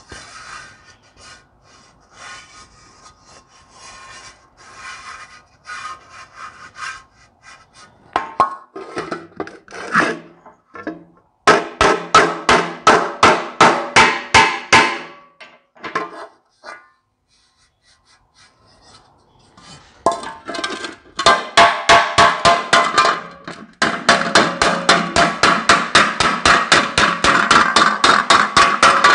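Ball-peen hammer striking the rim of a dented sheet-steel tractor air cleaner cover laid on a cast-iron differential housing, knocking out dents and waves in the metal. Quiet rubbing and light taps at first, then runs of sharp, rapid blows, several a second, with a short pause in the middle.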